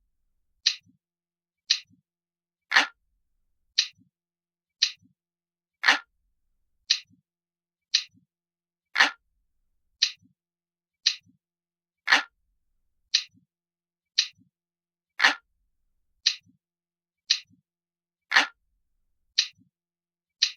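Ticking clock sound effect, a steady tick about once a second, with every third tick louder and fuller and each tick trailed by a faint softer click.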